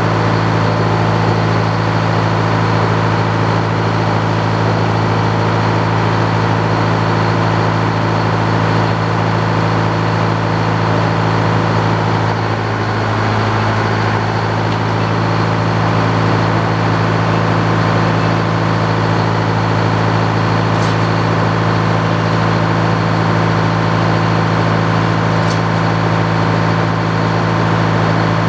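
Circular sawmill running free with no log in the cut: its power unit and drive run at a steady pace while the large circular head saw spins.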